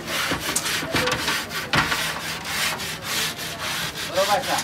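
Sponge scrubbing the inside wall of a large aluminium cooking pot in quick back-and-forth strokes, a rough rubbing scrape, with a sharper knock about two seconds in.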